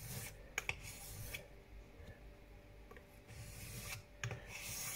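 Straight razor blade being stroked back and forth across a King 1000-grit whetstone while sharpening: a faint scraping hiss on each pass, with a few light clicks.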